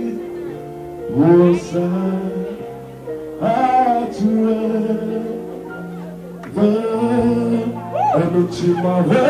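A song with singing over steady held chords, the vocal phrases coming in several times.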